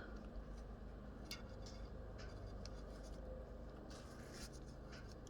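Faint small clicks and rubbing as a crimped wire terminal is pushed into a plastic connector housing and handled, over a low steady hum.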